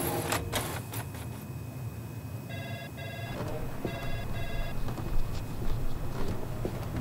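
Telephone ringing with a double ring: two short electronic trills, then another pair about a second later, over a low steady hum.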